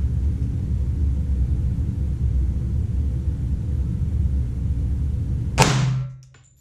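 Steady low rumble, then about five and a half seconds in a single gunshot from a 10mm Roni carbine built on a Glock 20 with a 16-inch barrel. The background drops away right after the shot.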